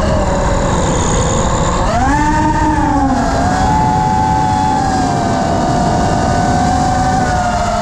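FPV quadcopter's electric motors and propellers whining, heard from the drone's onboard camera, over a steady rush of air. The pitch sags, jumps up with a burst of throttle about two seconds in, falls back, then holds fairly even.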